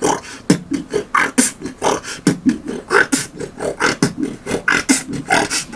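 A man beatboxing a dubstep-style beat with his mouth: a quick, even run of vocal kick and snare strokes, several a second, with short hummed bass tones between them.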